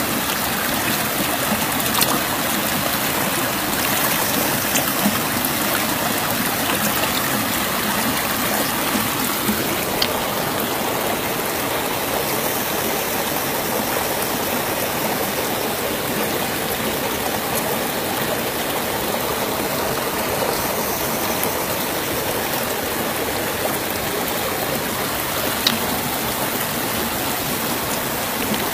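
River water running steadily over rocks, an even rushing noise, with a few sharp clicks.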